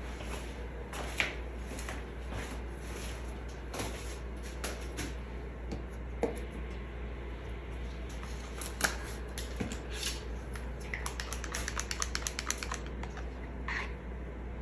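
Scattered light clicks and taps of plastic paint cups, bottles and a stir stick being handled. Near the end comes a quick run of ticks, about eight a second, from a stick stirring acrylic paint in a cup.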